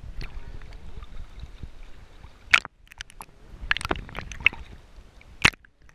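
Sea water sloshing and slapping against a camera held at the surface, with a low steady rumble and several sharp splashes, the loudest about two and a half and five and a half seconds in.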